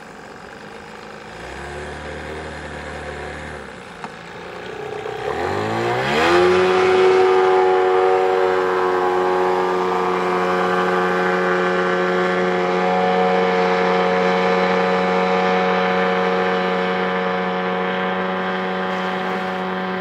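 Tohatsu 30 jet outboard, fitted with a polished stainless steel impeller, running at low speed. About four and a half seconds in it is throttled up, its pitch rising quickly over about two seconds, then held at a steady high pitch at full throttle as the inflatable boat runs at top speed.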